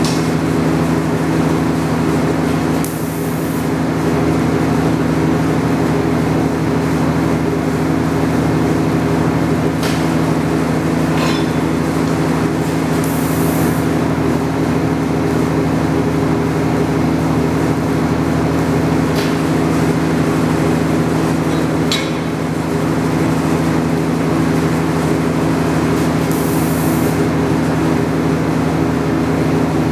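TIG welder buzzing steadily as it runs the arc. Short high hisses come three times, and there are a few light clicks.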